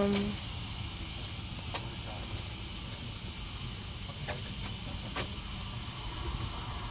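Steady background hiss with a low rumble underneath and a few faint ticks.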